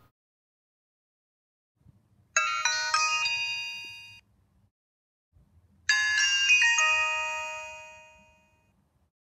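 Alcatel OneTouch 1016G feature phone's startup and shutdown tones: two short, bright chime melodies. The first comes about two seconds in and the second about six seconds in; each is a quick run of ringing notes that fades away.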